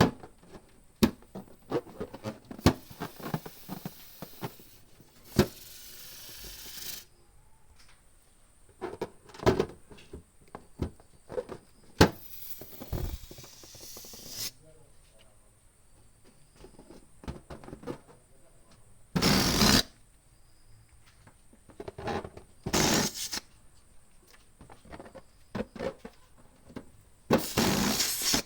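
A hand balloon pump pushing air in about six short rushes, each up to about two seconds long, between clicks and knocks from the pump and balloons being handled.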